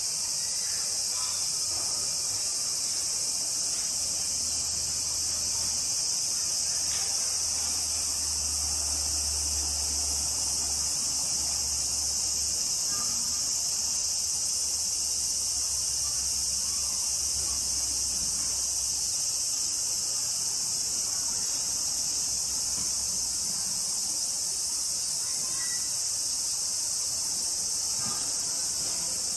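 A steady, high-pitched chorus of insects chirring without a break.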